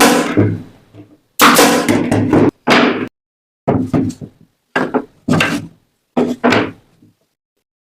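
A series of loud knocks on wood, about eight in all at uneven spacing, each starting sharply and dying away quickly, with dead silence between them.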